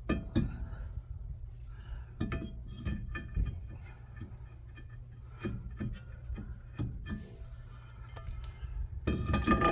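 Hard metal parts clinking, knocking and scraping at an irregular pace as a new drilled brake rotor and the old brake parts are handled and compared. There is a low steady hum beneath.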